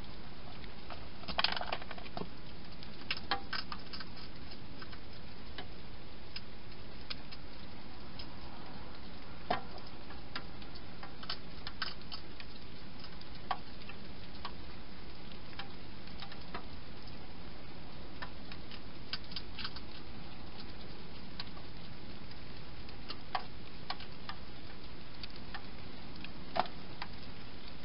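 A wild hedgehog eating inside a clear plastic feeding box: scattered sharp clicks and crunches, one every second or two, over a steady hiss.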